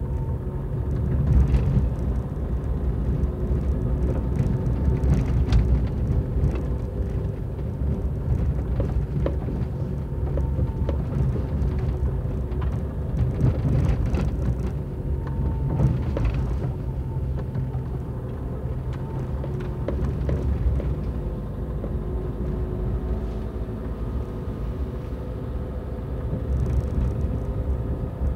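Car driving slowly along a gravel dirt road: steady low engine and tyre rumble, with scattered clicks and knocks from stones and bumps under the wheels.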